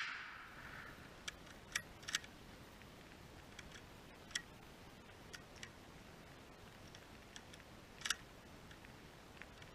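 The echo of a gunshot dying away in the first second, then a few faint, scattered sharp clicks.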